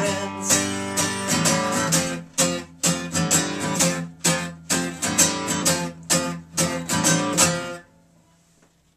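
Acoustic guitar strummed solo, playing the song's closing chords in a rhythm of separate strokes, with no voice. The playing stops about eight seconds in.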